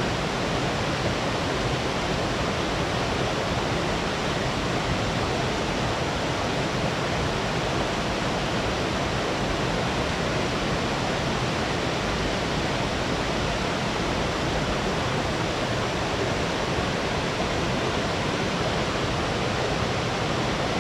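Small waterfall on a mountain stream: falling water making a steady, even rush of noise.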